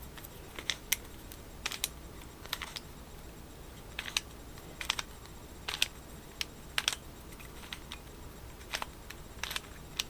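Plastic twisty puzzle being turned by hand: irregular sharp clicks and clacks as its layers are twisted and snap into place, often in quick pairs, with short pauses between moves.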